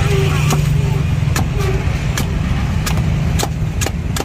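A heavy cleaver chopping into the husk of a young green coconut on a wooden block: about eight sharp chops at uneven spacing. Under the chops runs a steady low rumble.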